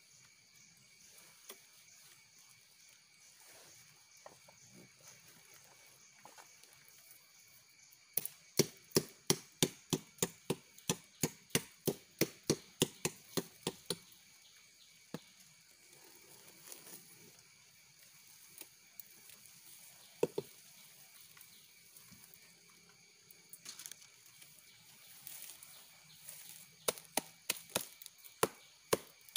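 A machete chopping at the black ijuk fibre on an arenga sugar palm trunk: a quick run of sharp chops, about three a second, starting about eight seconds in and lasting some six seconds, then a few single chops and another burst of chops near the end.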